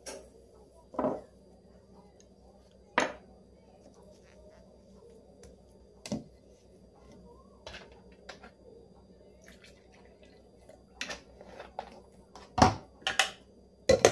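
Kitchen handling sounds: about ten separate clinks and plastic knocks from a bowl and a blender jar being set down and screwed tight on its base, the loudest near the end.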